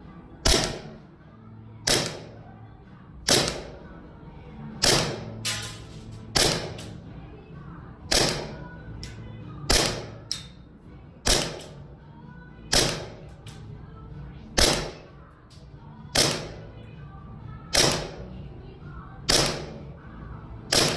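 Tokyo Marui Glock 18C gas blowback airsoft pistol firing single shots, each a sharp crack with the slide cycling, about one every second and a half, fourteen times.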